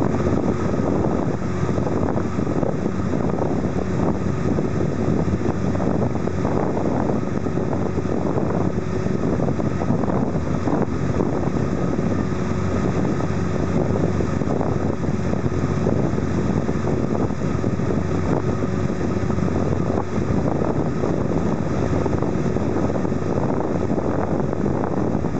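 A small motorboat's engine running steadily, with wind noise on the microphone.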